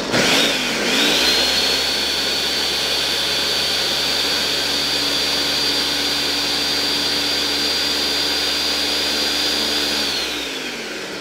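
Countertop blender puréeing hot cooked beans. The motor's whine climbs to a steady high pitch about a second in, holds steady, then winds down with falling pitch near the end.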